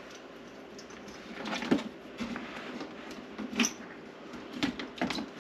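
Light plastic clicks and knocks, a few scattered over several seconds, as a yellow plastic egg-turner rack and its small turner motor are handled and fitted into a plastic egg incubator.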